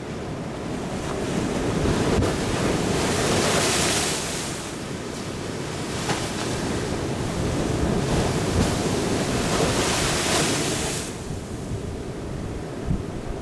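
Sea surf breaking over a rocky shoreline and washing back across the rock shelf, in a continuous rushing hiss. Two waves crash hardest, one a few seconds in and one in the second half.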